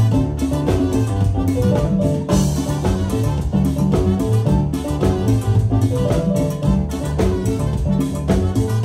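Live band playing an instrumental passage of tropical dance music, with drums and percussion keeping a steady beat over an upright bass line and no singing.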